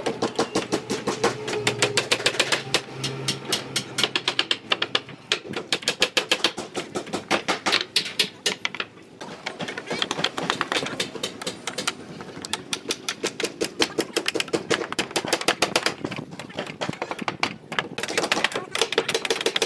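Hammers driving nails into wooden formwork planks: a rapid run of sharp knocks, several a second, with brief breaks about halfway through.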